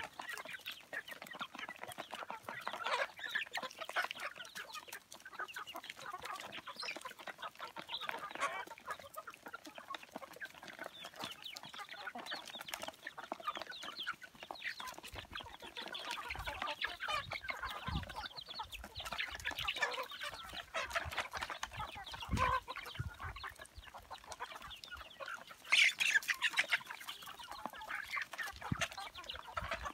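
A flock of young chickens clucking and chirping continuously while pecking at feed on the ground, many birds calling over each other. One louder, higher call stands out near the end, and there are a few low thumps in the second half.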